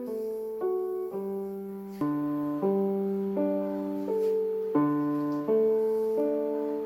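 Background music: a piano playing a slow run of held chords, changing about every three-quarters of a second.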